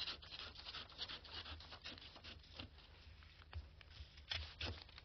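Scissors cutting through a paper sewing pattern: faint, irregular snips with the paper rustling and scraping against the table.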